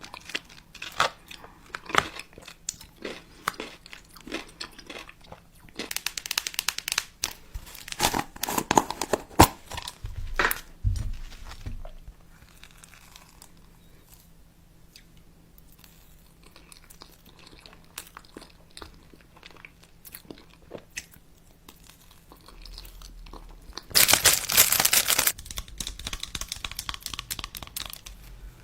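Close-up chewing and crunching with crinkling, a run of sharp crackles and crunches, then a louder, noisier burst lasting about a second near the end.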